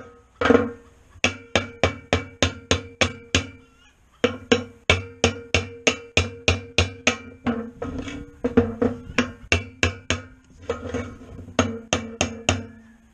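Hammer striking a punch set against a disk harrow's bearing in its housing block, driving the bearing out. Quick runs of sharp, ringing metal-on-metal blows, about three a second, broken by short pauses.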